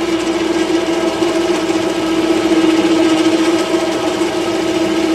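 A small power tool's electric motor running steadily at a constant pitch, with a strong hum and a high whine over it.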